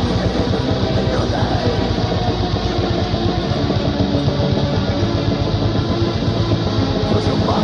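Metal album track: dense, distorted electric guitars over fast, continuous drumming, playing without a break.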